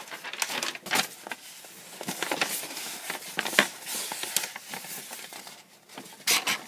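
A sheet of paper being handled close to the microphone, rustling and crinkling in irregular bursts, with a louder rustle near the end.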